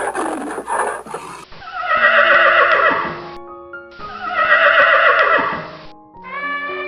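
A farm animal gives a long call, then the same call comes again about two seconds later, over background music with steady held notes. A different animal sound fades out in the first second and a half.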